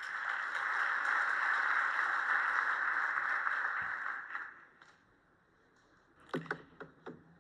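Audience applauding, dying away after about four and a half seconds; a few light knocks follow near the end.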